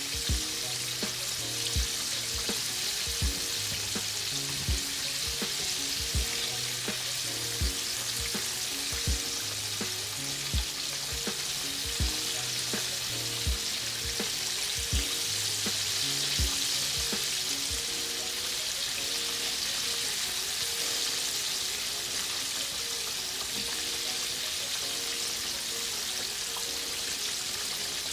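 Chicken frying in hot oil: a steady sizzle. Under it, music with low held notes and a regular beat plays until about two-thirds of the way through.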